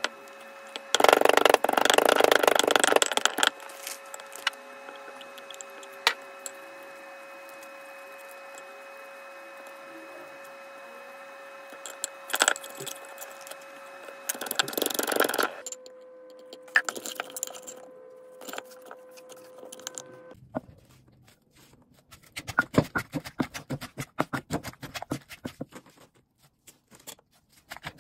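Wooden pestle pounding and bruising salad ingredients in a clay mortar, with a bamboo spatula scraping the sides. There are loud bouts of pounding near the start and about halfway, and rapid, steady pounding strokes in the last several seconds. A steady background hum runs through the first two-thirds.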